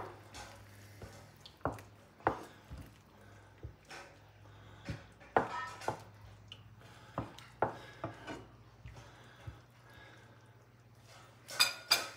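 Wooden spoon knocking and scraping against a skillet, in irregular separate clacks as chicken breasts are pushed around in the sauce, with a louder clatter near the end.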